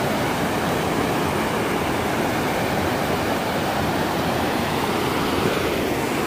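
Steady rush of a river tumbling over boulders and rock ledges in a gorge below.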